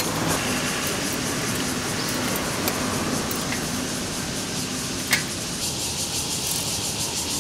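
Steady background hiss with a couple of short sharp clicks, the clearest about five seconds in.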